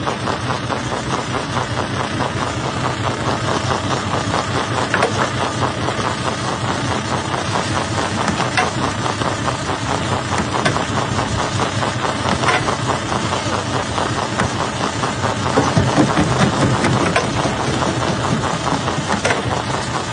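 Jaw-type rock crusher running steadily under load, with scattered sharp knocks and cracks of stone being broken; the sound swells for a couple of seconds about three quarters of the way through.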